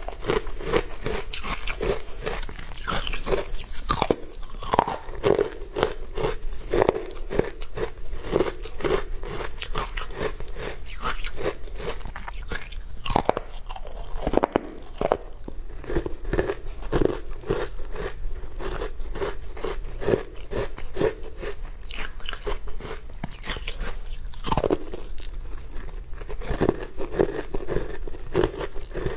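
Close-miked chewing and biting of a crunchy, green-powder-coated food: a steady run of sharp crunches, about two a second.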